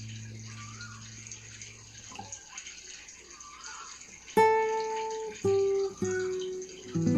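Solo acoustic guitar playing slowly: a chord rings and fades away, then after a pause single plucked notes sound about four, five and six seconds in, with a fuller chord near the end. Short bird chirps and a steady hiss of flowing water run underneath.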